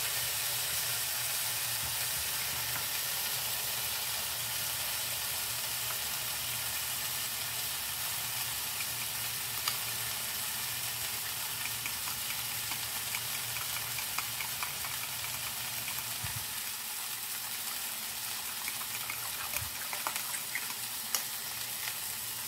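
Sausage patties sizzling steadily in a frying pan, with a fork clinking and scraping against a bowl as egg is mixed into batter.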